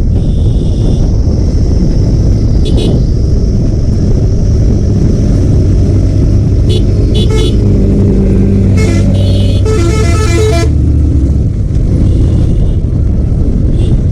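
Motorcycle riding on a road, its engine and heavy wind rumble steady throughout, with a vehicle horn honking about two thirds of the way in.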